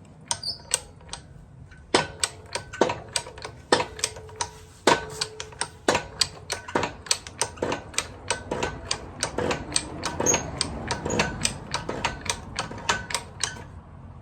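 Irregular sharp metallic clicks and taps, about two or three a second, some ringing briefly: hand tools working on metal parts. They stop shortly before the end.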